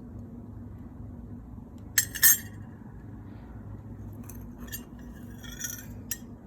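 Hard objects clinking together: two sharp, loud clinks about two seconds in, then several lighter clinks near the end, over a steady low hum.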